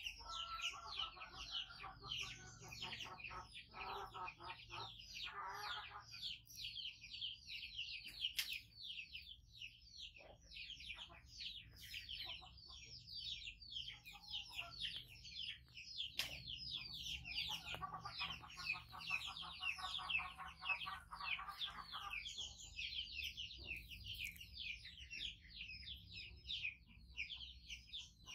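Rapid high-pitched bird chirping, several short falling chirps a second without a break, with two stretches of lower calls mixed in, near the start and again about two-thirds of the way through.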